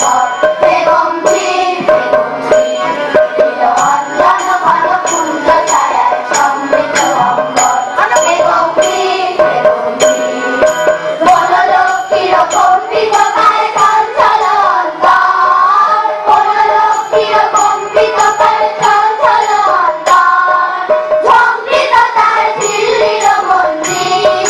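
Background music for a dance: a sung song with a steady drum beat.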